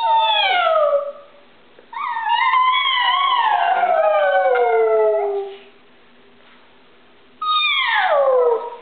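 A woman howling and a pug howling along with her: three falling howls, the middle one long, about three and a half seconds.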